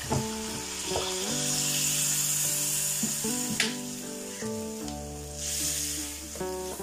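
Water poured into a hot kadai of frying beef korma masala hisses and sizzles, and a spatula stirs the curry, with one knock against the pan about halfway through. Soft background music plays underneath.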